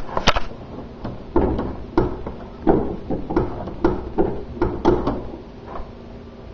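A run of knocks and thumps, about one every two-thirds of a second, from a hand working at the car's hood and its hard-to-reach release latch while the hood is being opened.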